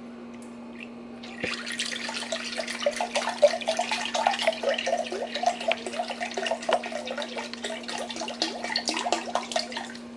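Chicken broth pouring from a carton into a glass measuring cup: a splashing stream that starts about a second and a half in and keeps going.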